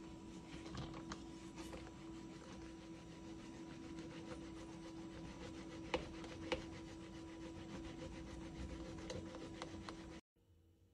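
Milk being frothed in a hand-pump plunger frother: the mesh plunger rubs and swishes as it is pumped up and down in the glass jug, over a steady low hum, with two sharp clicks about halfway through. The sound cuts off shortly before the end.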